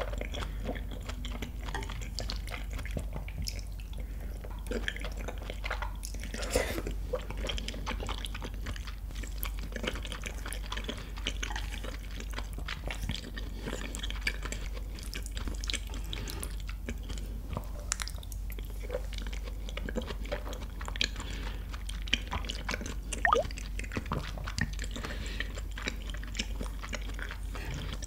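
Close-miked wet chewing of raw beef tartare, with many small sticky mouth clicks and smacks throughout.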